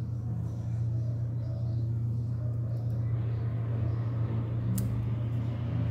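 A steady low hum runs throughout. Near the end comes one sharp snip of small scissors cutting a shoot of a Portulacaria afra (elephant bush) bonsai.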